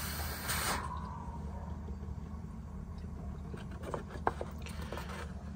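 Hiss of pressurized smoke-test air that cuts off about a second in, over a steady low hum, then a few light clicks as the plastic oil filler cap is handled.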